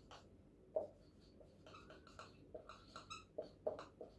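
Marker pen writing on a whiteboard: a series of faint short strokes, the loudest about a second in and a run of them near the end.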